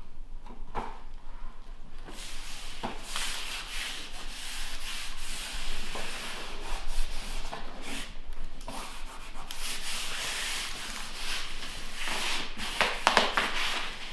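Broom sweeping across a newly laid floor: an uneven scratchy rubbing in strokes, with a few light knocks and stronger strokes near the end.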